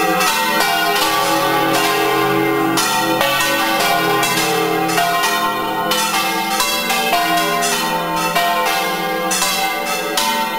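Church bells in a bell tower rung by hand with a rope, each bell hung from a wooden headstock. Strokes come about every second and the tones overlap into a continuous peal.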